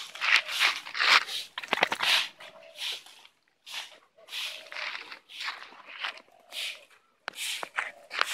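A hyperactive dog panting hard and grunting in quick, irregular breathy bursts, the grunts half pig-like.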